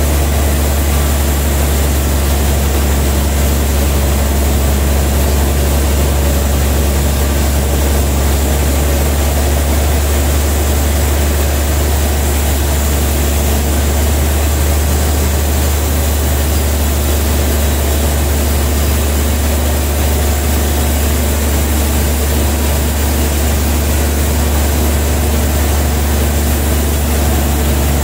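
Large band sawmill running steadily with a deep, even hum while a trembesi log is sawn through.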